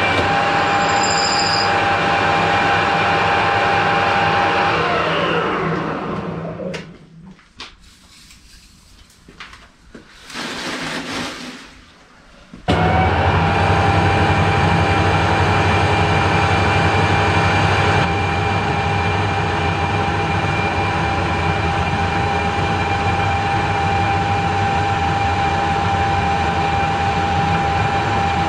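Geared-head metal lathe running with a steady gear whine. About five seconds in it is switched off and the whine falls away as the spindle spins down, leaving a few seconds of quieter knocks and handling noise. At about twelve and a half seconds the lathe is suddenly running at full speed again, turning the bush.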